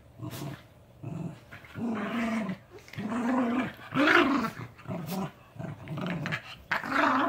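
A puppy and an adult dog play-fighting, growling in a string of short bursts, loudest about four seconds in and again near the end.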